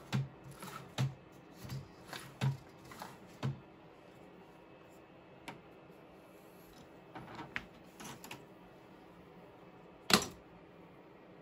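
Light plastic clicks and knocks from a 3D printed table loom being handled, about one every 0.7 s at first. After that come a few scattered weaker ticks and one sharper knock about ten seconds in.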